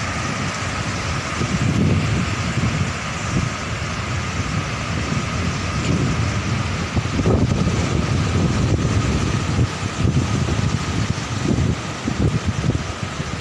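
Heavy surf: large waves breaking and rushing up a rocky shore, with strong wind buffeting the microphone in irregular low rumbling gusts.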